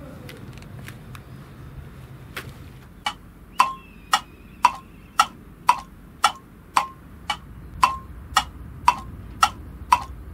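Sharp, evenly spaced ticking knocks, about two a second, each with a short ring, starting about three seconds in after a few fainter scattered clicks.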